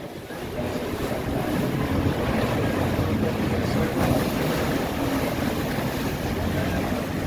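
Ferry engines running and its propellers churning the water as the boat manoeuvres alongside the landing, with wind on the microphone. The sound grows louder over the first second or two, then holds steady with a low hum under the rushing water.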